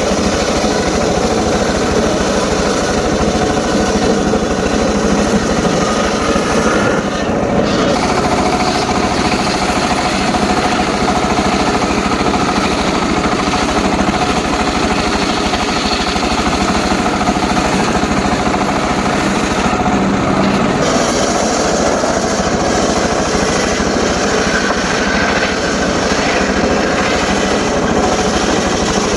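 Homemade circular saw rig running steadily and cutting short lengths of teak wood: a dense, continuous mechanical din.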